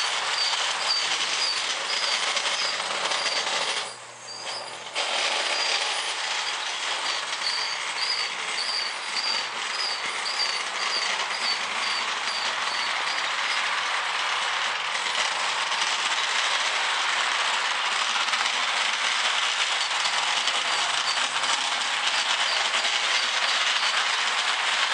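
Lionel O gauge model freight train, led by a General-type steam locomotive, rolling along plastic-roadbed track: a steady rolling rumble of the cars' wheels on the metal rails. A faint high chirp repeats about two or three times a second through the first half, and the sound briefly drops away about four seconds in.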